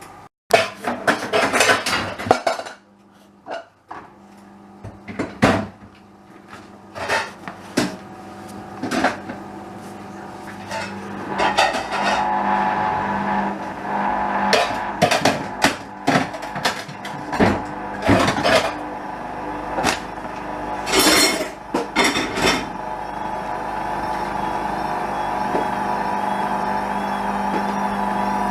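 Hoover A59 washing machine working through its cycle: a run of irregular clunks and knocks, then about halfway through its motor hum rises and settles into a steady run with a wavering whine.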